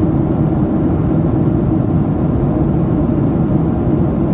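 Steady cabin noise of a Boeing 737-800 in flight: an even, low roar from its CFM56-7B engines and the air rushing past the fuselage, heard inside the passenger cabin.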